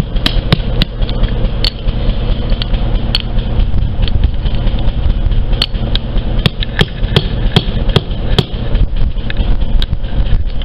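Metal tool knocking and chipping at hard lumps of thermite slag and the broken mold: a long irregular series of sharp clicks and knocks, with gaps between them.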